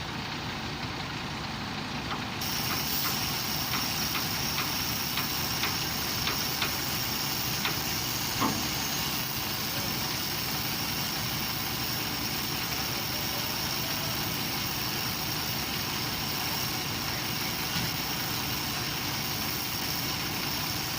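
Heavy equipment engine running steadily, with scattered clicks and one sharp knock about eight seconds in.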